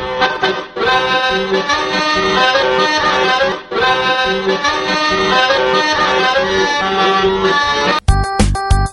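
Accordion music with a lively folk feel. About eight seconds in it cuts abruptly to a different tune with a heavy, even beat.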